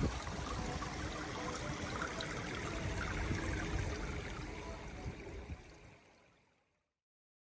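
Steady running and trickling of swimming-pool water, fading out to silence near the end.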